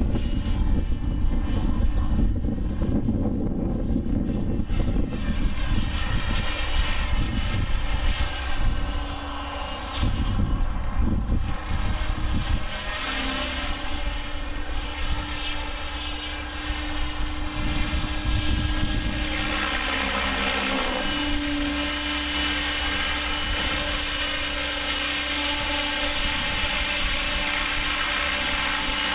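Align T-Rex 600 radio-controlled helicopter in flight: a steady rotor and motor whine that rises and falls in pitch as it manoeuvres. Wind buffets the microphone with low rumbling gusts through the first half.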